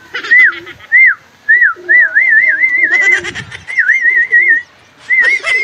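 A person whistling to call a pigeon home into the loft's trapdoor: a string of short rising-and-falling whistles, breaking into quick warbling trills about two seconds in and again near four seconds.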